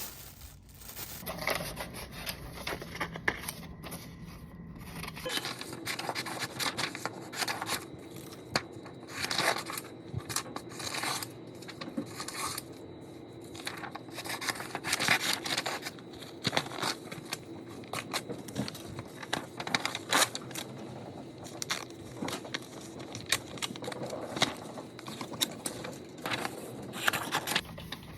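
Irregular clicks, rustles and scrapes of small objects being handled, over a faint steady hum.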